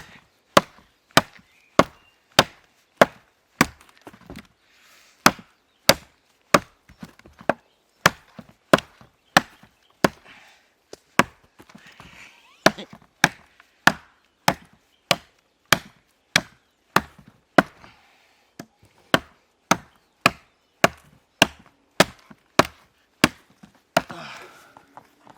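A hand-forged knife chopping into a small tree's wood with sharp, rapid, evenly paced blows, about three every two seconds, without a break. A brief rustle comes near the end.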